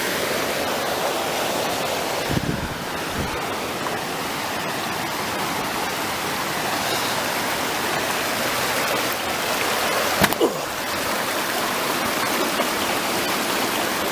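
Steady rushing of a fast-flowing mountain stream, close by, with a couple of low knocks about two and a half seconds in and a sharp click about ten seconds in.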